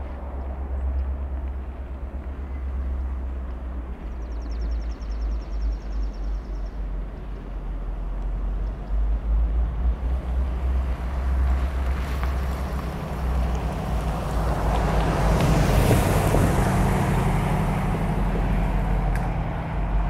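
Diesel locomotives of an approaching Canadian National freight train, heard before the train comes into view: a low engine rumble that grows louder in the second half, with wind buffeting the microphone.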